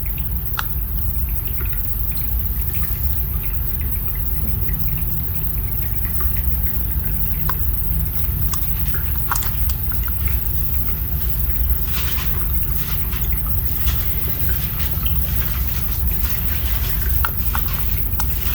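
Small DC motor of a cardboard electric toy car running with a steady low hum, with scattered light clicks and ticks.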